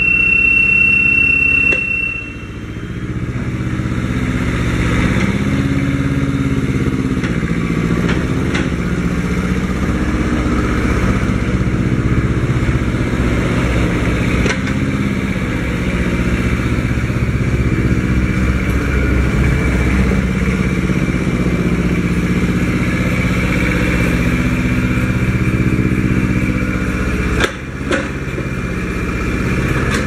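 Hokuto 220HD mini excavator's engine running under hydraulic load as the boom, arm and swing are worked, its note stepping up and down as the levers load it. There are a few short clanks, and a steady high whine in the first two seconds.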